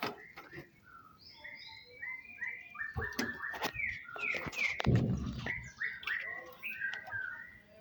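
Small birds chirping busily, with rapid short falling calls, along with a few sharp clicks and a low thump about five seconds in.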